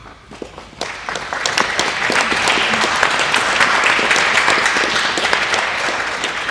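Audience applauding: many hands clapping that start about a second in, build to a full round of applause, then begin to ease off near the end.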